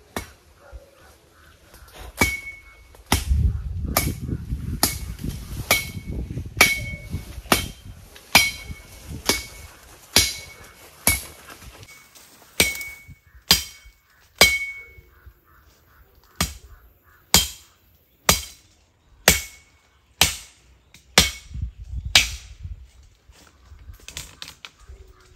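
A steel blade chopping into a tree trunk, about one blow a second, each stroke ringing briefly, while a small tree is being cut down.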